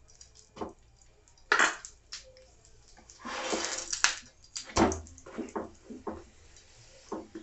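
Steel spoon spreading ghee over a paratha on a hot nonstick tawa: scraping and scattered light taps, with a second-long hiss of sizzling ghee about three seconds in.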